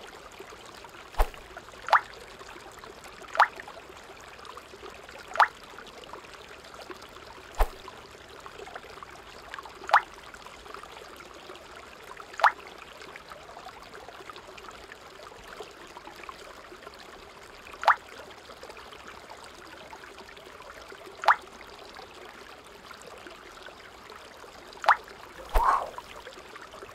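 A steady trickle of running water, broken by sharp, short clicks every few seconds.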